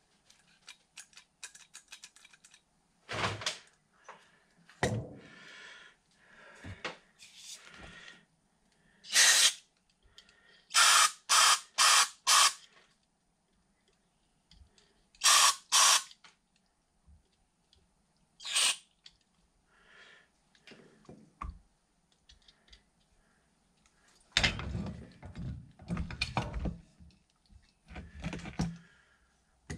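Short hissing blasts of aerosol cleaner sprayed through a straw into the passages of a disassembled small-engine carburetor, to clear and check its jets for clogs: about eight blasts in all, four of them in quick succession. Around them are clicks and clatter of small metal carburetor parts and tools handled on a workbench, busiest near the end.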